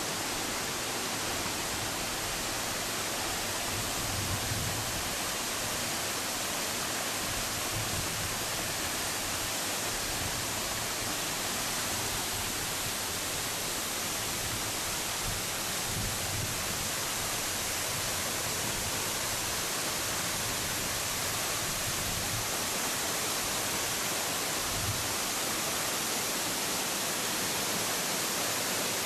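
Waterfall rushing steadily: a tall fall plunging down a narrow rock gorge into smaller cascades, an even, unbroken hiss. A few soft low bumps come through underneath.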